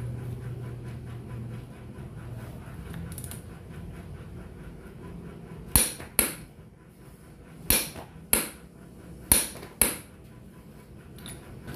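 Click-type torque wrench set to 330 Nm, pulled on a bolt. It gives three sharp metallic double clicks a second or two apart, each the wrench breaking over at its set torque.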